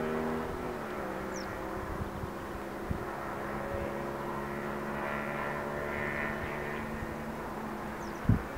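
A steady engine drone with several held tones, dropping slightly in pitch about a second in. A short low thump near the end.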